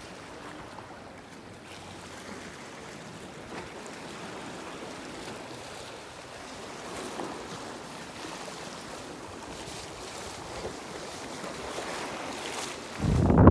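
Sea waves washing in, a steady hiss of surf, with wind buffeting the microphone in a loud low rumble near the end.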